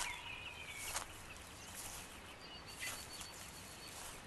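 Faint outdoor ambience: a low steady hiss with a few brief, faint bird chirps and some soft clicks.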